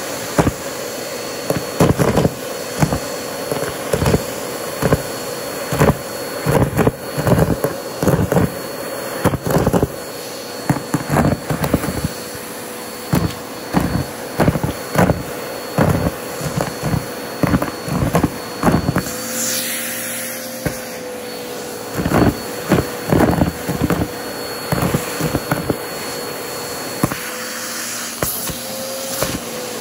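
Upright vacuum cleaner running steadily through a clear extension tube with a plastic cup on its end, sucking up deflated balloons and small white chunks from carpet. Its steady motor hum sits under rapid, irregular clattering and crunching as pieces are pulled in. About two-thirds through, the clatter stops for a couple of seconds while the motor tone shifts slightly.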